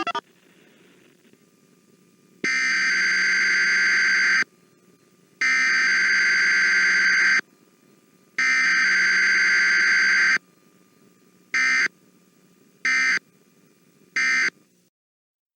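Emergency Alert System SAME digital header tones, coding a required monthly test: three harsh buzzing bursts of about two seconds each, a second apart, then three short bursts. A faint steady hiss runs between them.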